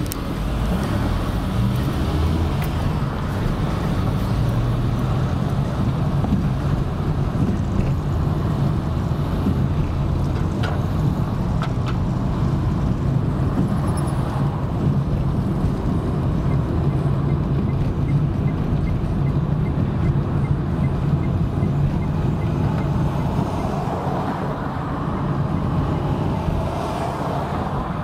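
Car engine and tyre noise heard inside a moving taxi's cabin: a steady low hum over road rumble.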